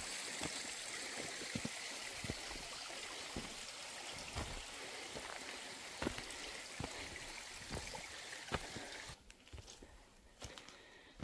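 Stream water running steadily, with a few scattered knocks over it. The water sound cuts off sharply about nine seconds in, leaving fainter ticks and knocks.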